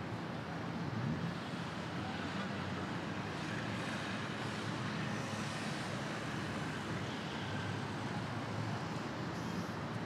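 City street traffic: cars and other motor vehicles running and passing, a steady mix of engine and tyre noise.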